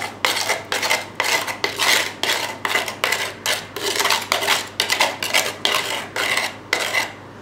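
A metal spoon scraping thick wet cement out of a cup into a metal bowl, in quick repeated strokes about three a second.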